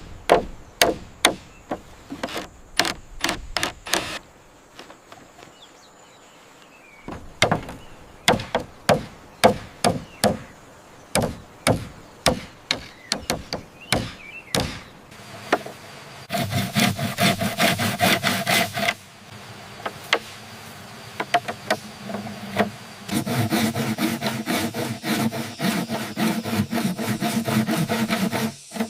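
Wooden strikes on bamboo: sharp knocks at about two a second, pausing briefly after the first few seconds. Then two longer spells of quick rubbing strokes on bamboo, with a ringing tone in them, in the middle and near the end.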